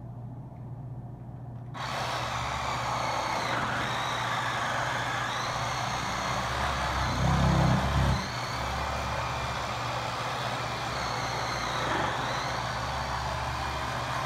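Reciprocating saw starting about two seconds in and running steadily as its blade cuts through the bone of a hog carcass between the third and fourth rib, its motor whine wavering in pitch under load. It grows louder and heavier for about a second near the middle.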